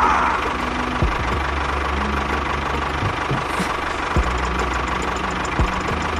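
An engine running steadily, with a faint steady whine above it and a few single knocks.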